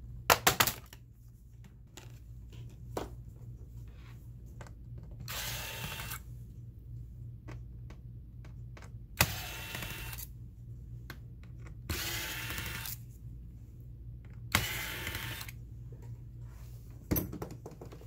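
Electric precision screwdriver running in four short runs of about a second each, backing out small screws from the base of a Dell Inspiron 15-5552 laptop. It opens with a quick cluster of sharp plastic clicks as the bottom cover is pried loose, and there is a single click near the end.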